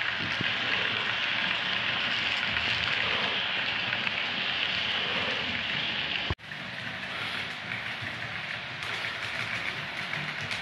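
Piko model SU45 diesel locomotive and its coaches running on model railway track: a steady hiss and rumble of the motor and wheels on the rails. It cuts out abruptly about six seconds in and comes back somewhat quieter.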